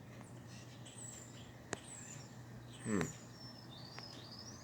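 Birds chirping faintly: a few thin, high chirps sliding down in pitch, then a rising one near the end, over a low steady hum. A sharp click comes a little before two seconds in, and a brief low sound falling in pitch about three seconds in is the loudest moment.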